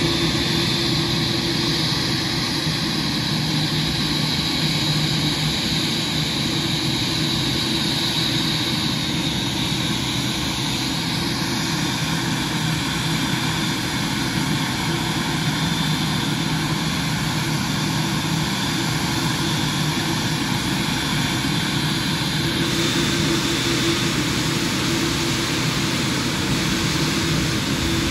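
Boeing 787-10's GEnx turbofans running at idle on stand: a steady jet engine noise with a high whine and a low hum.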